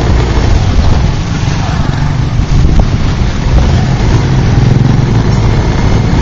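Street traffic heard from a motorbike crawling in congested traffic: a steady, loud, low rumble of small motorbike and tricycle engines.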